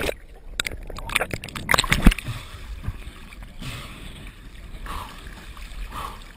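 Water splashing and gurgling against a camera dunked under the surface and lifted back out, with a quick run of crackles and knocks for about the first two seconds, then a softer steady wash of water.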